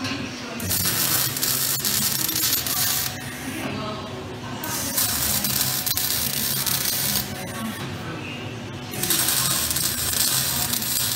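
MIG welding arc on steel tube, crackling and hissing in three runs of a few seconds each, with short pauses between welds.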